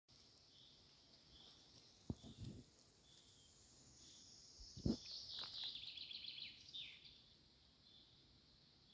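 Woodland birdsong with repeated short high notes, and a louder trill that falls in pitch from about five seconds in. Faint low thumps and rustles near two and five seconds come from footsteps in the dry leaf litter.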